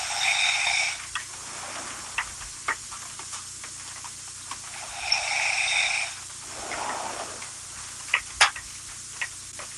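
A woman snoring in her sleep: two long, noisy snoring breaths about five seconds apart, each lasting about a second, with a softer, lower breath between them. Several sharp clicks come and go among the breaths.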